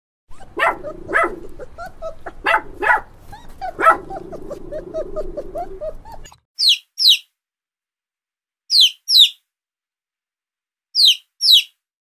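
Dogs barking and yipping in quick, repeated calls for about six seconds, then stopping abruptly. After that come three pairs of short, high peeps that fall quickly in pitch, with silence between the pairs.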